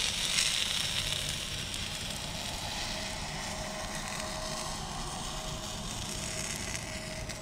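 Hot dogs sizzling on a Blackstone flat-top griddle: a steady frying hiss.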